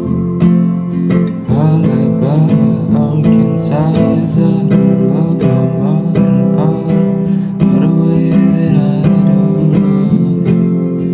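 Music led by a strummed acoustic guitar, played with a steady rhythm of strokes and a gliding melody line above it.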